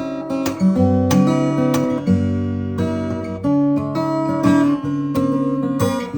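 Martin OM-28 steel-string acoustic guitar being played: a run of picked notes and chords, several a second, each left ringing over the next.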